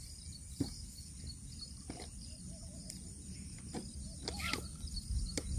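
Quiet outdoor ambience: low wind rumble on the microphone and a steady high hiss, with a few faint clicks and a short faint bird call about four and a half seconds in.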